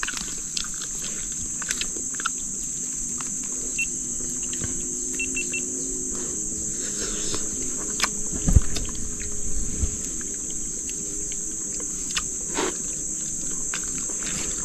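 Steady high-pitched drone of an insect chorus in the forest, with scattered small clicks and knocks and one louder thump a little past halfway. A faint low hum comes and goes in the middle.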